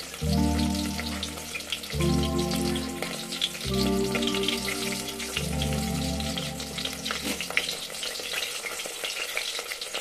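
Dried milkfish (daing na bangus) frying in oil in a lidded wok, with a steady sizzle and dense crackling. Background music with slow chord changes plays over it and stops about seven seconds in.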